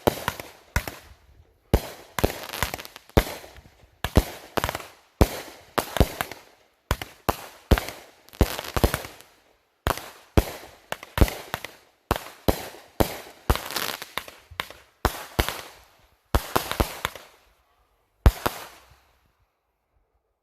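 Consumer fireworks going off in quick succession: a sharp bang every second or so, each followed by a crackling tail. The string of shots stops about a second and a half before the end.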